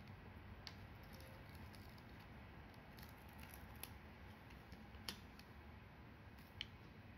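Faint crinkling and small sharp ticks of paper release liner being picked at and peeled from double-sided adhesive tape pads, a few scattered clicks with the loudest about five seconds in.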